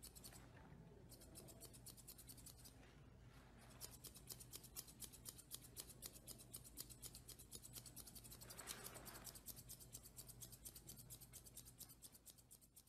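Faint, rapid snipping of grooming scissors trimming a Pomeranian's face fur: a quick run of small clicks, several a second.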